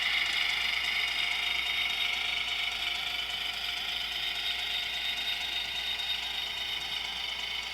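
HO scale model train running on the track: a steady whir of the locomotive's motor and gears with wheel noise, slowly fading.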